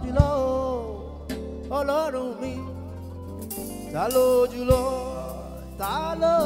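Live gospel praise singing: a male lead vocalist sings long, sliding held phrases over a backing band's sustained low chords, with a couple of sharp drum hits.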